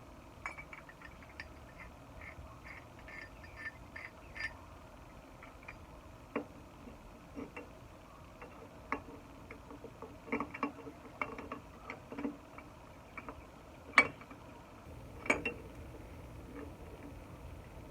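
Scattered clinks and knocks of metal tools being handled while working on a stuck drum hub, with a sharp strike about fourteen seconds in and another about a second later.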